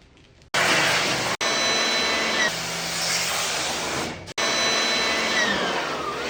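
Loud, steady motor noise from air-conditioner cleaning equipment. It starts about half a second in, cuts out for an instant twice, and has a falling whine near the end.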